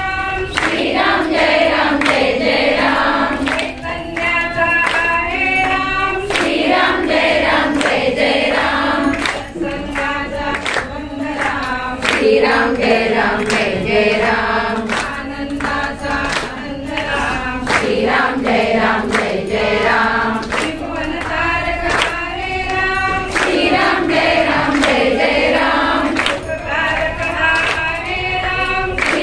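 A group of women singing a Hindu devotional bhajan together, with steady hand claps keeping time throughout.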